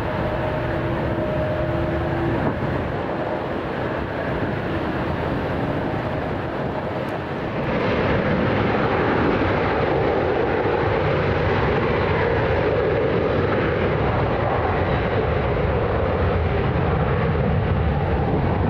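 Jet engine noise from a departing Boeing 737, a steady rushing sound with a faint steady whine. About eight seconds in it cuts abruptly to a second, louder 737 departure.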